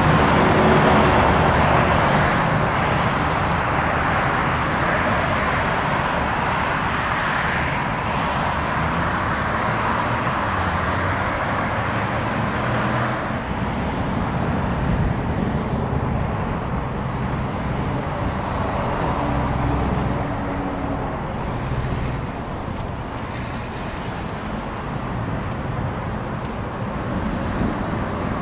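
Jet noise of airliners landing on final approach, mixed with steady road traffic. The sound is loudest in the first half, while a Boeing 777 passes low. About halfway through it drops suddenly to a quieter rumble as a Boeing 787-10 approaches from a distance.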